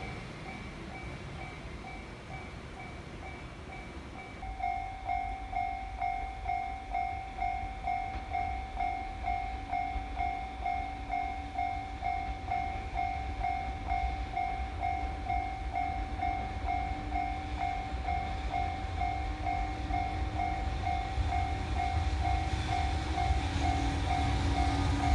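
Japanese railway level-crossing warning bell ringing steadily at about two electronic clangs a second, louder from about four seconds in. Beneath it runs a low freight-train rumble that fades at first and grows again near the end as another train approaches.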